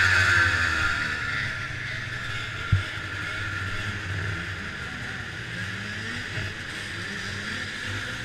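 440 cc liquid-cooled two-stroke racing snowmobile engine running steadily at low revs as the sled creeps along, with one sharp knock about three seconds in.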